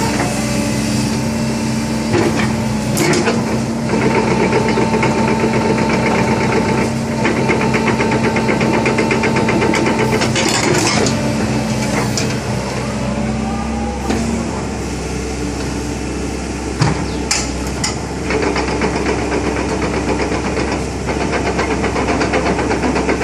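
Sumitomo SH120A1 excavator's diesel engine running steadily, with a higher whine over it for several seconds and a few sharp knocks; the engine note shifts about two-thirds of the way through.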